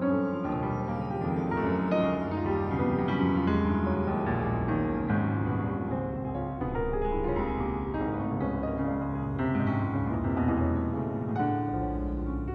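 Keyboard music: layered piano-like notes sounding over one another, with a deep bass note coming in about four seconds in.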